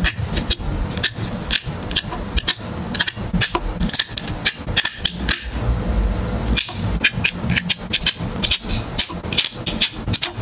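Quick, irregular clicks and taps of small puzzle pieces being handled and pressed into the plastic frame of a toy vending-machine puzzle, several a second.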